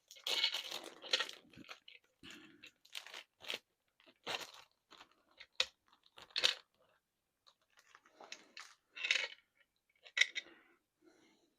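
Packaging rustling and crinkling in irregular bursts as a diamond-painting drill tray is unwrapped and handled.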